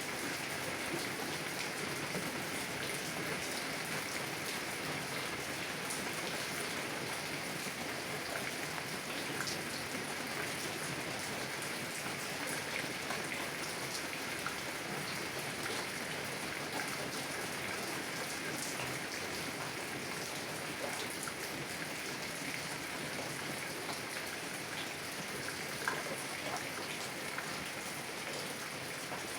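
Heavy rain falling on a car's window: a steady hiss of rain with scattered sharper drop ticks, one louder tick near the end.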